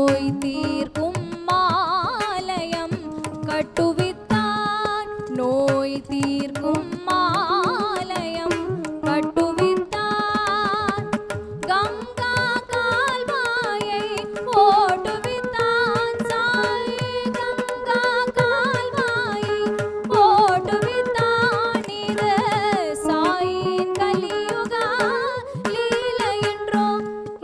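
Carnatic music: an ornamented melody with wavering, sliding notes over a steady held drone, with hand-drum strokes keeping the rhythm.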